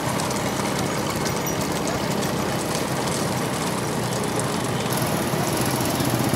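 Several motorcycles running at speed together, a steady rumble of engine and road noise.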